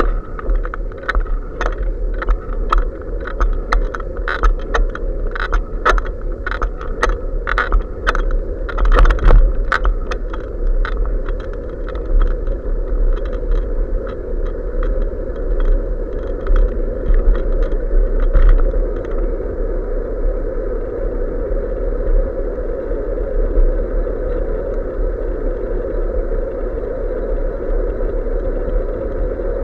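Bicycle riding on a paved street, heard through an action camera fixed to the bike: a steady low rumble of road and wind noise, with quick rattling clicks from the bike and camera mount that are dense for most of the first two-thirds and then die down to a smoother steady hum.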